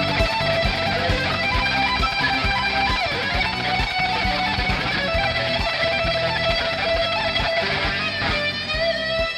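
Rock band music without vocals: strummed electric guitars over bass and a steady drum beat, ending about eight seconds in on a chord left ringing.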